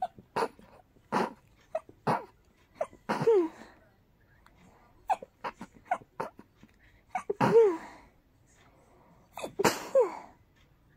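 A person sneezing over and over in rapid succession: a dozen or more short, sudden sneezes, several of them voiced with a falling pitch. The loudest come about three-quarters of the way in and near the end.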